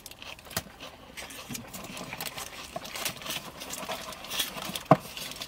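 Close-up chewing and mouth sounds of people eating a crispy chicken burger and salad, with a crinkling paper wrapper. There is one sharp click shortly before the end.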